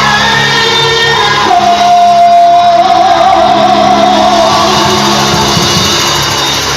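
Live gospel worship music: a singer holds one long note through the middle over the band's steady backing, with some shouting and a choir.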